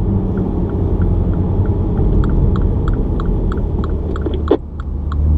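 Mini car driving, heard from inside the cabin: a steady low engine and road rumble. A regular light ticking comes in about a second in, roughly four ticks a second, and there is a single sharp knock a little after four seconds.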